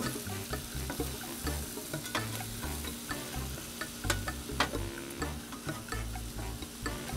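Shaved ribeye and onions sizzling on a Blackstone propane griddle's hot steel top, with the scrape and occasional sharp click of two long metal spatulas against the plate as the meat is pushed into piles.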